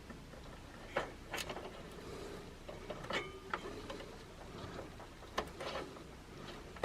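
A few faint plastic clicks and scrapes as a front-panel audio cable connector is handled and pushed onto its pin header on a PC motherboard.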